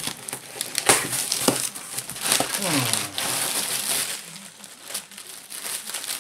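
Plastic air-cushion packing and paper packing crinkling and rustling as they are pulled out of a cardboard box by hand, with a few sharp crackles.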